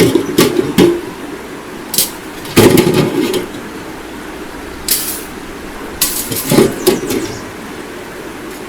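Irregular knocks and rattles of gear being handled, in a few clusters, over a steady background rush.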